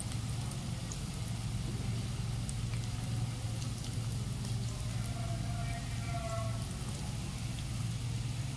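Cabbage Manchurian balls deep-frying in hot mustard oil: a steady sizzle with fine scattered crackles, over a steady low hum. A faint brief tone sounds about five to six seconds in.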